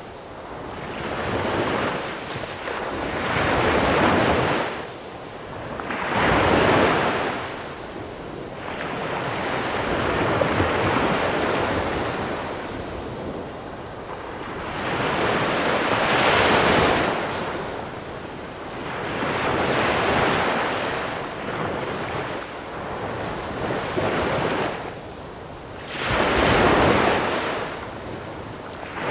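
Small waves rolling in and breaking on a pebble beach, each swell rising and washing back over the stones, about eight surges in turn every few seconds. Light wind on the microphone.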